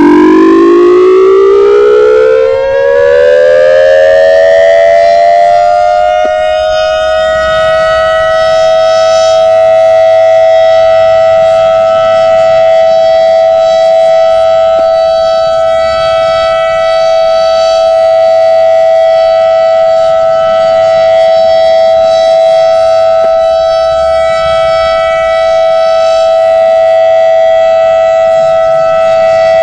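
ACA Alertronic 6000R electronic warning siren starting up: its loud tone glides upward for about six seconds, then holds one steady pitch, the steady alert signal of an outdoor tornado siren test.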